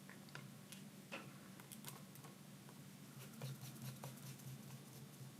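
Faint, scattered small clicks and ticks of a screwdriver turning a small Phillips screw into a laptop, over a low steady hum.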